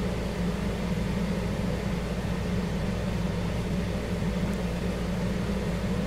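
Steady low hum of machine or room noise, unchanging throughout.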